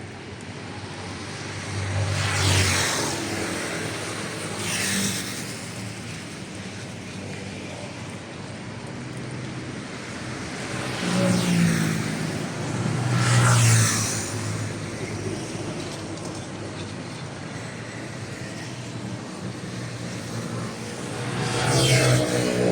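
Road traffic: several vehicles pass close by, each a rush of engine and tyre noise that swells and fades, over a steady background of traffic.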